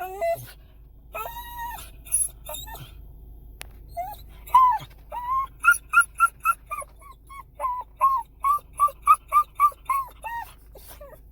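A dog whining and crying in short, high, pitched cries: a few spaced ones at first, then a quick run of about two cries a second through the second half. It is the anxious, excited crying of a dog that cannot contain himself.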